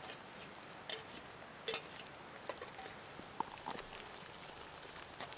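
A metal spoon clicking and scraping against a camp cooking pot as stew is spooned into a plastic bowl: about half a dozen soft, separate taps spread over a few seconds, some with a short metallic ring.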